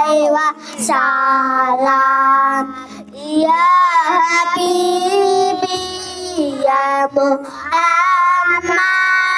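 A boy singing a sholawat, an Islamic devotional song, into a microphone. He sings long held, ornamented notes in phrases, with short breaks between them.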